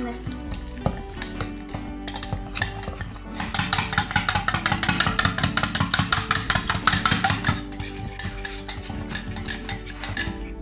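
A spoon stirring ragi flour and water in a stainless steel bowl, scraping and clinking against the metal. The strokes are slow at first, then fast and rhythmic from about three seconds in until about eight seconds in.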